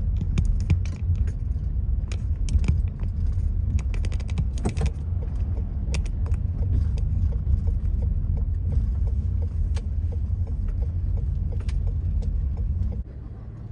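Car road noise heard from inside the cabin while driving: a steady low rumble with frequent small clicks and rattles. The rumble falls away sharply near the end.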